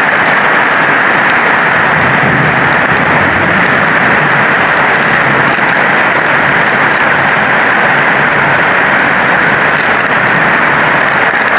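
Heavy rain falling on a corrugated metal roof overhead: a loud, steady hiss.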